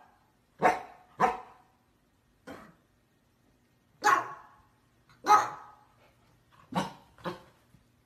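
A dog barking in short, sharp barks, about seven in all. Some come in quick pairs and one is fainter, with short pauses between them.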